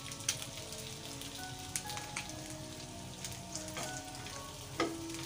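Marinated chicken pieces sizzling on a ridged grill pan, with scattered sharp clicks of metal tongs against the pan. Soft background music with held notes plays underneath.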